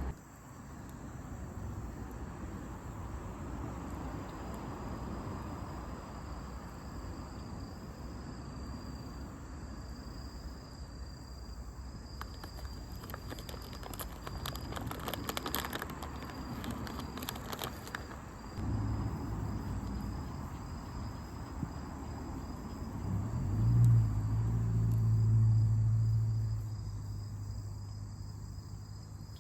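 Insects trilling in a thin, steady high tone. A run of sharp crackles comes in the middle, and a low hum swells and fades again about twenty-four seconds in; the hum is the loudest thing.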